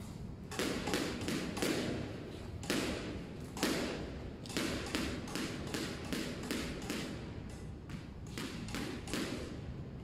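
Squash racket striking a squash ball: a quick run of taps and thuds, about three a second, starting about half a second in and stopping just after nine seconds.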